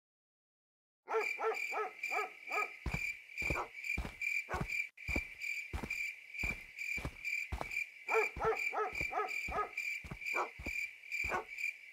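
Night ambience: crickets chirping steadily, with two quick series of hooting calls. From about three seconds in come footsteps on a dirt path, about two a second.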